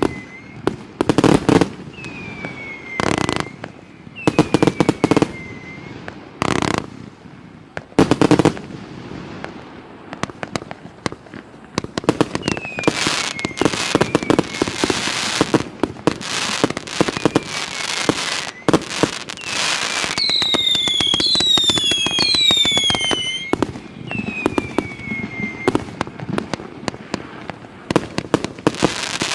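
Multi-calibre fireworks cake (FP-B331 'Esminets', 308 shots) firing: loud separate bangs at first, then a dense, rapid volley of shots with crackle from about twelve seconds in. Short falling whistles are heard through it, several overlapping in a cluster near the two-thirds mark.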